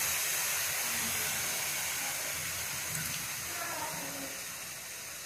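Steam hissing out of a pressure cooker's vent while its weight is held up with a ladle, releasing the built-up pressure after cooking. The hiss fades steadily as the pressure drops.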